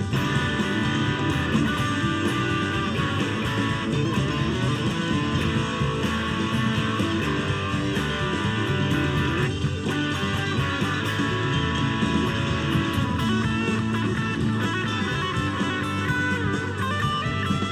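Electric guitar playing lead lines over a full rock band backing with drums and bass.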